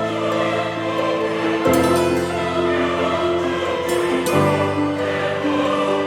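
Intro music with a choir-like sung or sustained chorus: held chords that change about two seconds in and again past the middle.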